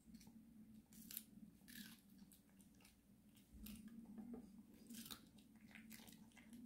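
Maltese dog biting and chewing a raw yellow bell pepper strip: faint, irregular crisp crunches, roughly one a second, over a steady low hum.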